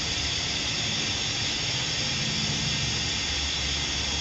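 Steady hiss with a low hum underneath from the cooker running under the water-bath canner.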